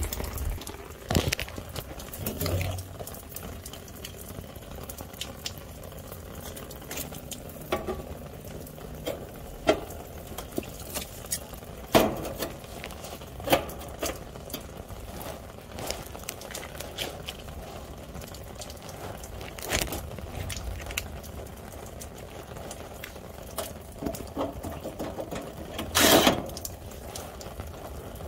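Hand work at an air-conditioner condenser's electrical side: scattered light clicks and knocks over a steady low rumble, with one louder knock or rustle near the end.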